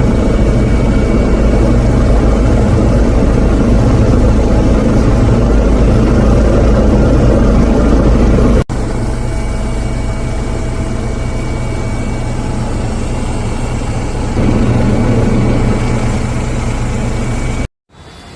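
Steady, heavy engine-and-rotor noise of a helicopter, a constant low rumble with fixed engine tones. It breaks off abruptly about nine seconds in and carries on a little quieter.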